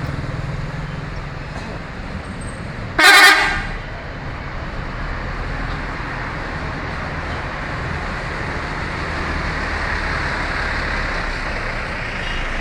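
A bus's telolet horn sounds one short, loud blast about three seconds in, over a steady rumble of engines and road traffic.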